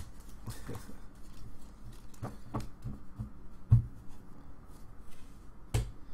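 A stack of trading cards being handled and squared up on a table: a series of soft taps and knocks. The loudest comes a little past halfway, and another follows near the end.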